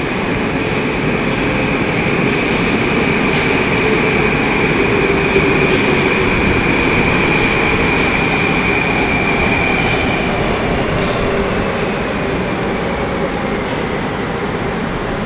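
Moscow metro train moving along the platform: a steady rumble of wheels on rail with a high whine. The whine fades away about ten to thirteen seconds in, while a lower hum sinks slightly in pitch.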